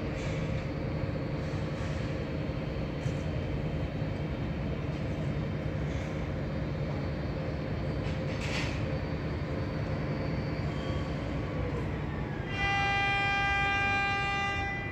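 Steady low mechanical rumble, then near the end a loud horn sounds one steady blast of about two seconds.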